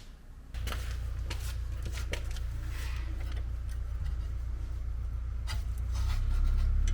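Light clicks and scrapes of tools and metal parts being handled during brake work, over a steady low hum that starts about half a second in and grows louder near the end.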